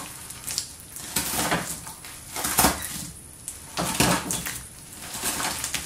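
Cheese balls being crushed by hand into sticky clear slime in a bowl. Crunching, squishing bursts come four or five times, a little over a second apart.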